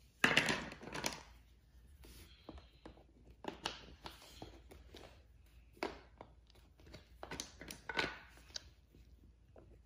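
Small interlocking plastic building pieces being handled and pressed together on a wooden floor: scattered light clicks and taps, with a louder rustling sound just after the start.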